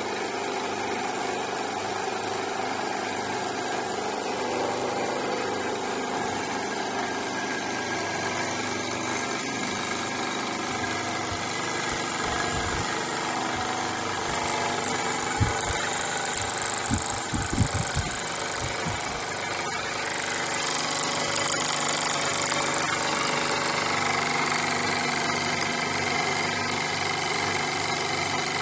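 Small two-cylinder model steam engine running steadily, a continuous mechanical running sound, with a few low knocks about halfway through.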